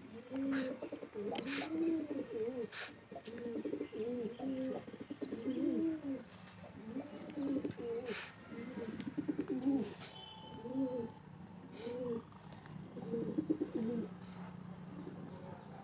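Domestic pigeons cooing over and over, many rising-and-falling coos overlapping one another, with a few faint clicks among them.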